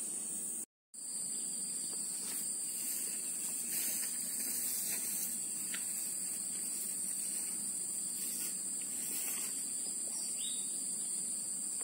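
Steady high-pitched drone of an insect chorus, unchanging throughout, with the sound cutting out completely for a split second a little under a second in.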